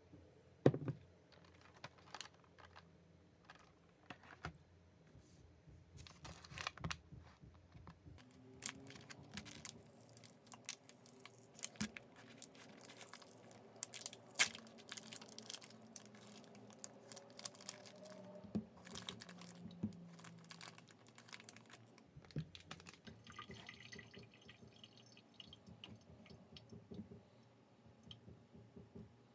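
Quiet kitchen handling: a steel bowl set down with a knock about a second in, then a plastic sausage package crinkling and rustling for several seconds as it is pulled open with difficulty. Near the end a knife starts on the sausages on a wooden cutting board.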